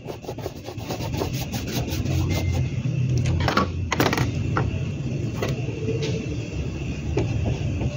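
A steady low mechanical rumble, like a running engine or nearby traffic, with a few short knocks and scrapes from objects being handled on a workbench.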